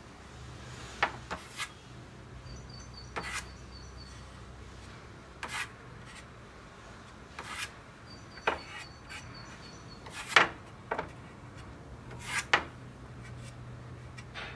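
Wooden scabbard halves being handled on a workbench: wood rubbing and sliding, with a dozen or so short knocks and taps scattered through, the sharpest about ten seconds in.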